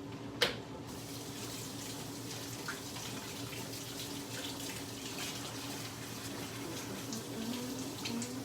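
Kitchen sink faucet running in a steady stream as hands are washed under it, after a sharp click about half a second in.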